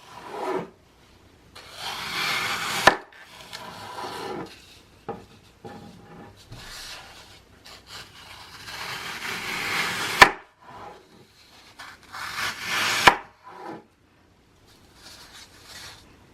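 Dry floral foam being cut into cubes with a blade. Several slow strokes of scraping hiss build up and each ends in a sharp click as the blade goes through.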